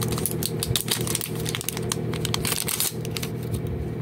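A new smartphone and its plastic wrapping being handled: rapid crinkles and small clicks over a steady low background hum.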